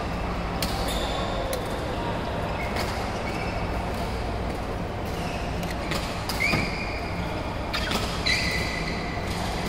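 Badminton rackets striking shuttlecocks in sharp clicks, scattered irregularly, with court shoes squeaking briefly on the court mat several times. A steady low hum runs underneath.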